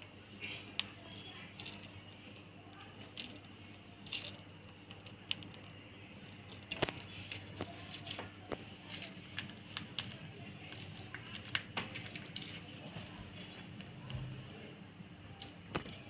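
Young rose-ringed parakeet pecking and picking grains from a small plastic bowl: irregular sharp clicks and light rattles of beak on bowl and grain, over a faint steady low hum.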